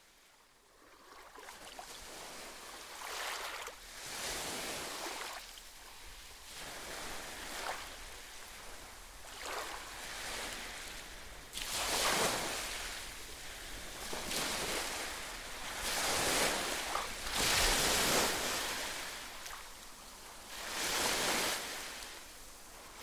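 Sea waves washing onto a beach: a wash of surf that swells and recedes every two to three seconds, the surges growing louder about halfway through.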